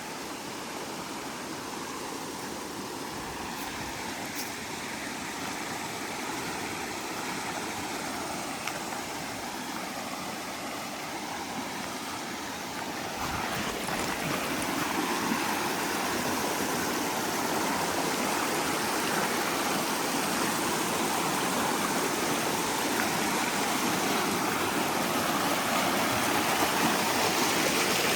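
Water rushing over rocks in the stream of a tiered jungle waterfall, a steady rush that steps up in loudness about halfway through and keeps growing toward the end.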